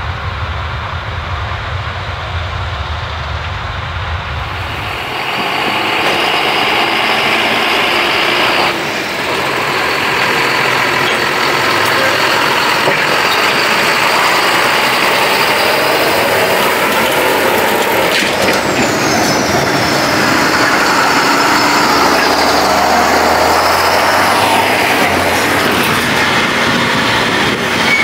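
Heavy farm machinery running steadily under load. The sound changes abruptly about four and a half seconds in, becoming louder and brighter.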